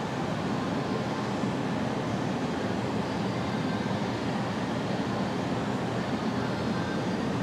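Steady rushing background noise, even throughout, with no distinct events or voices.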